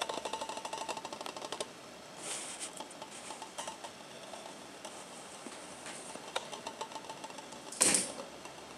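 A kitten's paws and claws clicking and pattering on a wooden floor as it plays with a string toy, with a rapid run of ticks at first. A short, loud scuffle near the end as it pounces on the toy on the rug.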